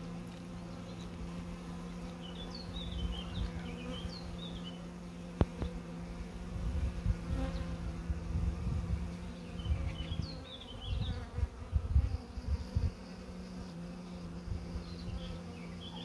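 Honeybees buzzing in flight around the entrances of small mating boxes, a steady hum. Low rumbling bursts come and go through the middle, and brief high chirps sound a few times.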